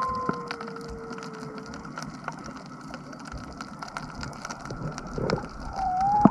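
Humpback whale song heard underwater: a long moan slowly falling in pitch over the first two seconds, then a short rising call near the end, over a constant dense crackling. A sharp click comes at the very end.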